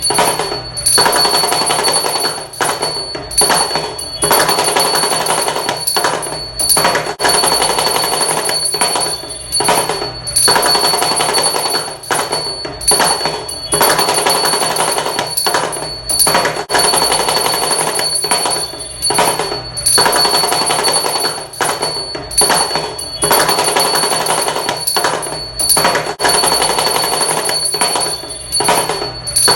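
Damru, the small hourglass-shaped hand drum, played with continuous rapid rattling strokes in phrases broken by short pauses every couple of seconds, with a steady high ringing over it.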